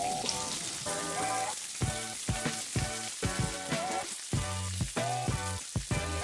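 Salmon fillets sizzling in hot oil in a frying pan, a steady hiss. Background music with a steady beat plays over it.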